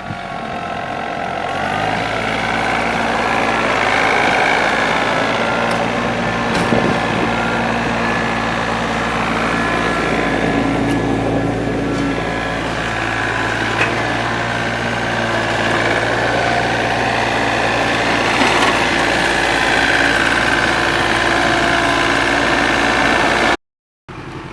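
Vehicle engine running steadily and loudly while clearing snow, cutting out abruptly for a moment near the end.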